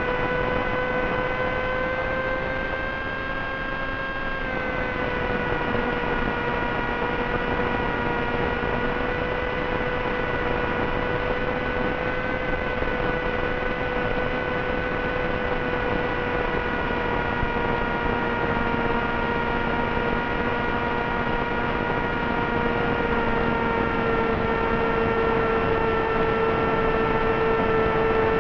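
Steady whine from a flying wing's brushless motor drive, with a row of overtones over a constant hiss in the FPV recording. The pitch dips slightly about four seconds in.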